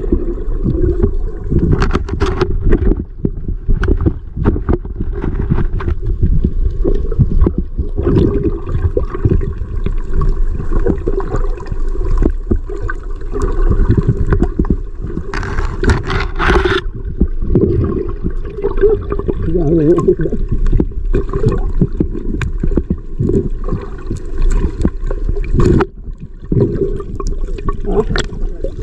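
Muffled churning and gurgling of water around a camera held underwater, with many small knocks and a brief louder rush a little past halfway.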